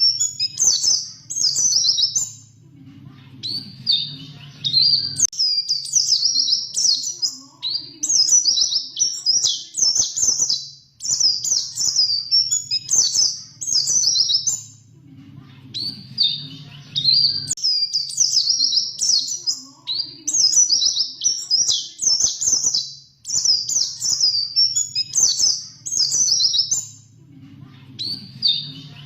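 A white-eye (pleci) singing a fast, high-pitched rolling warble in phrases of a second or two, repeated with short breaks. A low hum runs underneath and cuts off suddenly twice.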